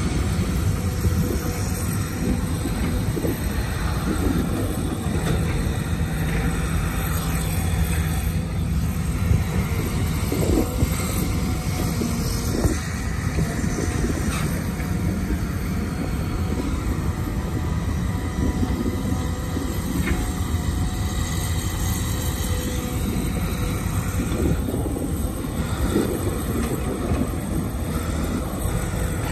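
Cat 323GC excavator's diesel engine running steadily under load while digging and loading soil, with a few short knocks over the engine noise.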